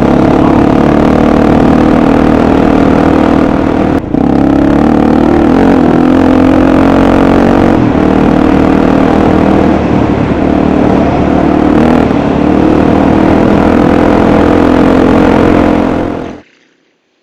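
Dirt bike engine running steadily while riding along a dirt track, heard from on board. There are brief dips about four seconds in and again later, and the sound cuts off suddenly near the end.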